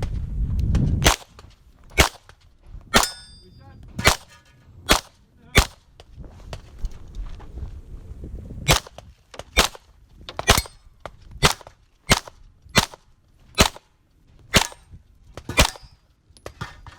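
9mm pistol fired in a timed IPSC course of fire: about fifteen single shots roughly a second apart, with a pause of about three seconds after the first six.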